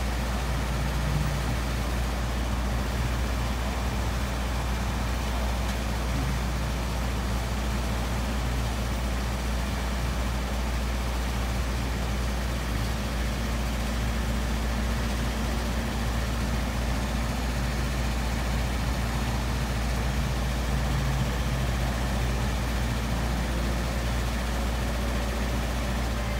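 Mister Softee ice cream truck's engine idling while parked, a steady low hum that does not change.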